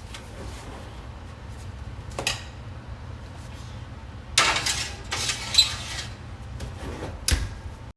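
Kitchen handling noises over a steady low hum: a short clatter about two seconds in, louder clattering and rustling around four to six seconds in, and a sharp knock with a dull thump near the end.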